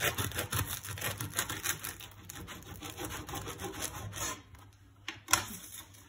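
Kitchen knife sawing through a crusty baguette sandwich on a wooden cutting board: rapid back-and-forth strokes with the crust crackling, stopping a little after four seconds in. About five seconds in, a single sharp knock as the knife is set down on the board.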